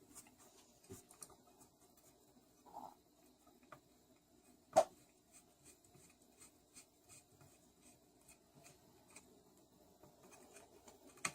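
Hand tools and metal parts being handled while working on a small engine: faint scraping and light scattered clicks, with one sharp metallic clank about five seconds in and another near the end.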